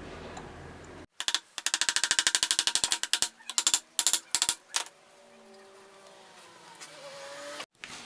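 Motorcycle engine running with a fast train of sharp exhaust pops, about a dozen a second, then a few irregular blips, then a quieter stretch whose pitch rises near the end as it is revved. The sound starts and stops with abrupt cuts.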